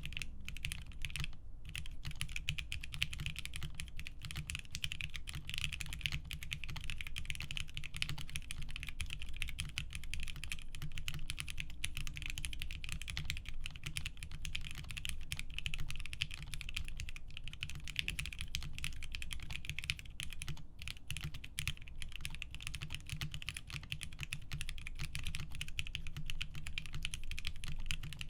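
Continuous rapid typing on a Whi65 prototype mechanical keyboard: lubed and filmed Alpaca v2 linear switches on a polycarbonate plate, in a gasket-mounted aluminium case. The keystrokes run in a dense, unbroken stream without pause.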